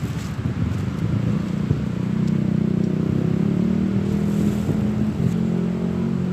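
A motor vehicle engine running, with a steady low hum that sets in about two seconds in, after some rough rustling noise.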